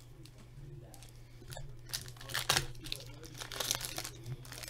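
Foil trading card pack wrappers crinkling and rustling as they are handled, in a run of crisp crackles that grows busier about halfway through, over a steady low hum.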